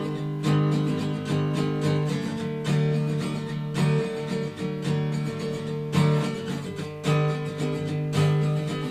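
Acoustic guitar strummed in steady chords, an instrumental passage of a song between sung lines.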